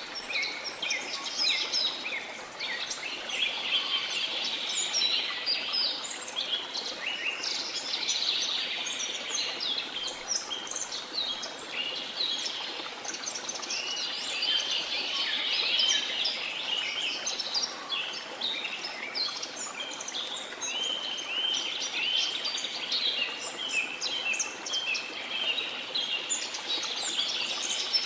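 Dense chorus of many birds chirping and trilling in rapid, overlapping short notes, over a steady, even background rush.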